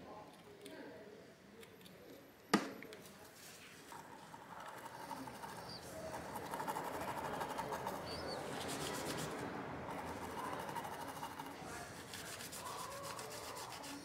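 Toothbrush bristles scrubbing an RTX 3060 Ti's GPU die and circuit board wet with isopropyl alcohol, to loosen old thermal paste. It is a steady scratchy brushing that begins about four seconds in, after one sharp tap.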